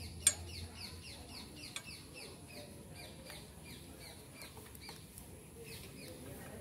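A bird chirping in a fast, even series of short falling notes, about four a second. A sharp click sounds near the start, with a lighter one about a second and a half later.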